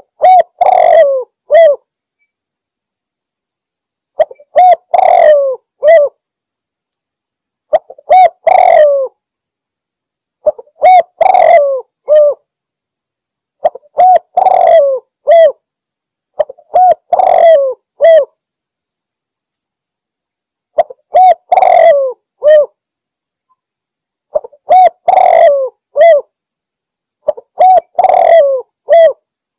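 Spotted dove (tekukur) cooing: a short phrase of a few notes with one longer middle coo, repeated about every three seconds, nine times, with silent gaps between. This is the dove's call to a rival male, used as a lure call.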